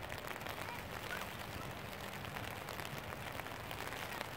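Light rain pattering steadily, with faint distant calls over it.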